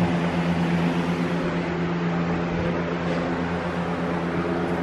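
Electric box fan running steadily to dry out a flooded basement floor: an even whirring drone with a steady low hum under it.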